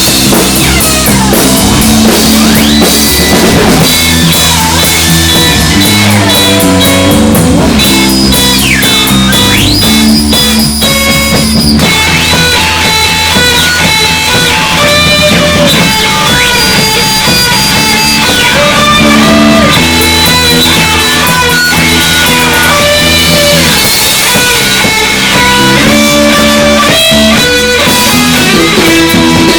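Live rock band improvising: drum kit and bass keep a rhythm under distorted electric guitar noise, with held tones and squealing notes that slide up and down in pitch.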